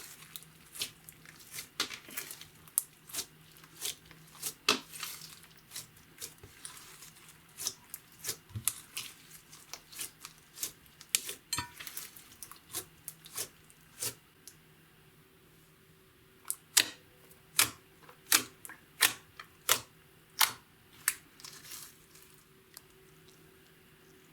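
Clear slime being worked by hand, making sharp sticky pops and clicks about one or two a second, with a short lull a little past the middle.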